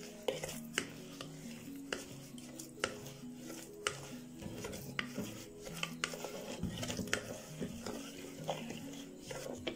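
A plastic ladle stirring thick rice-flour batter in a steel bowl, with sharp clicks about once a second as it knocks against the bowl. Soft background music plays underneath.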